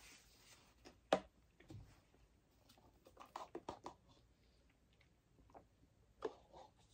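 A person eating and drinking close to the microphone: faint, scattered mouth clicks and smacks, a sharper click about a second in and a cluster of them about three seconds in.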